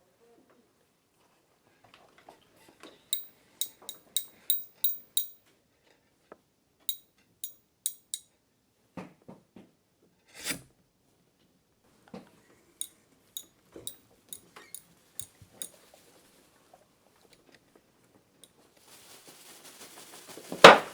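Hard objects tapped and clinked one after another: a quick run of sharp clicks a few seconds in, then scattered knocks. Near the end a rustling hiss builds and ends in a loud clatter.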